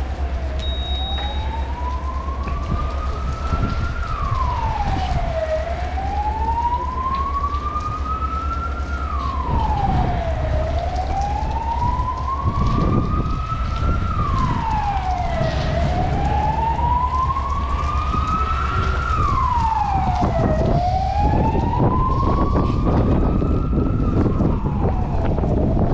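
A siren wailing: its tone rises slowly for about four seconds, then falls more quickly, repeating about every five seconds, over a steady low rumble.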